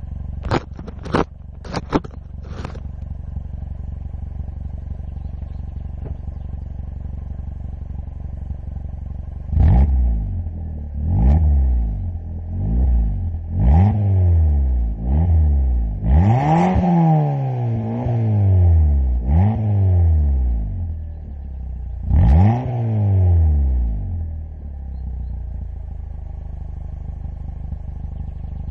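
Fiat Grande Punto engine through a Magnaflow sport exhaust, with a few sharp snaps in the first seconds, then idling steadily. About a third of the way in it is revved about nine times, each rev rising and falling in pitch and one held longer, then it settles back to a steady idle.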